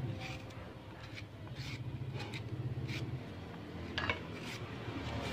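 Light, irregular knocks and scrapes of peeled ginger, carrot and apple pieces and a utensil being handled on a plate or cutting board, about eight short clicks in all, the sharpest about four seconds in.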